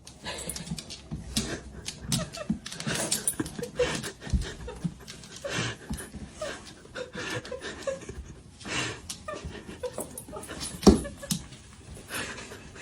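A dog panting, with scattered clicks and knocks; the loudest knock comes near the end.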